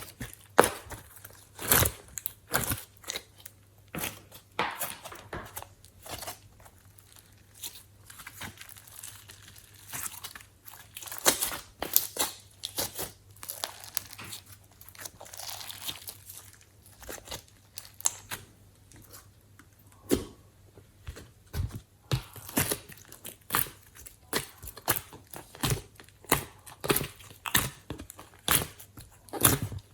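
Glossy slime being squished and stretched by hand, giving irregular sticky pops, clicks and crackles.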